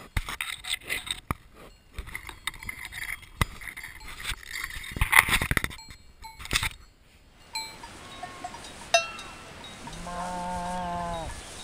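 A cow's muzzle right against the microphone, sniffing and mouthing it: breath with irregular knocks and scrapes, loudest about five seconds in. After the sound turns quieter, a cowbell rings once, and near the end a single long moo is heard.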